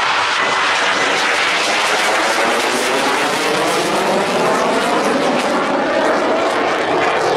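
Roar of a KAI T-50i Golden Eagle jet trainer's single turbofan engine passing overhead: a loud, steady rush with a slowly sweeping, phasing whoosh as the jet moves across the sky.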